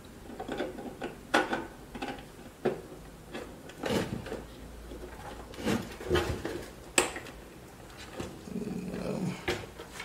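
Power supply cables and plastic connectors being handled and pushed into place inside a desktop PC case while the main power connector is refitted: scattered clicks and knocks. A short low voice sound comes near the end.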